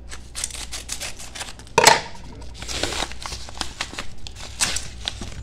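Scissors snipping through a padded paper mailer: a run of quick sharp cuts with the paper crinkling and rustling as it is handled, and one louder knock just before two seconds in.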